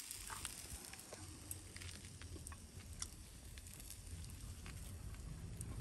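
Faint crackling of meat grilling over charcoal: scattered small pops and clicks over a low steady hum.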